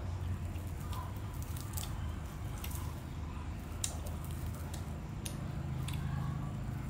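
Crisp snaps and crackles of fresh water-chive stems as hands gather and fold a bunch: a few sharp, separate snaps over a steady low hum.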